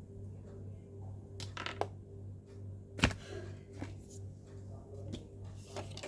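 Soft background music with a steady pulse, under light handling clicks and taps of an unboxing, the sharpest click about three seconds in.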